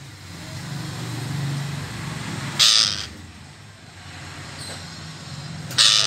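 Red-breasted parakeet giving two short, loud calls, one near the middle and one right at the end, with a fainter call between them. Under the calls runs a low steady hum that swells in the first half.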